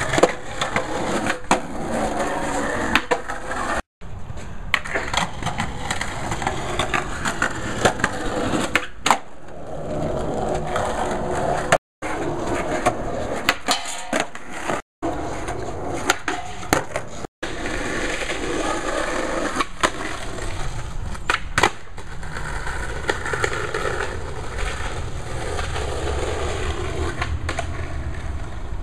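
Skateboard wheels rolling on concrete and asphalt, with sharp clacks of the board popping and landing scattered throughout. The sound cuts out abruptly for a moment a few times.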